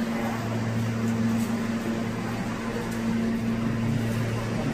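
An R160 subway car standing at the platform, giving off a steady low electrical hum from its onboard equipment, with no rise or fall in pitch.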